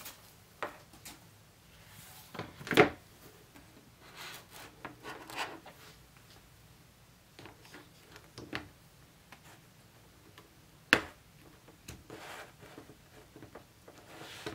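An iPad being fitted into a soft folio case and handled on a desk: rubbing of the case and cover, with scattered taps and knocks. Two sharper knocks, about three seconds in and near eleven seconds in, are the loudest.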